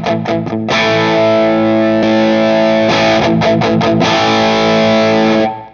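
Distorted electric guitar played through stacked overdrive pedals into an amp, with a mid-forward drive tone. It plays a few short chugs and then a held chord, twice, and the last chord is cut off suddenly near the end.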